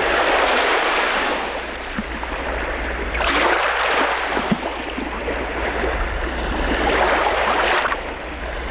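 Loud rushing noise, the sound of open water or wind, that swells and fades three times over a steady low hum.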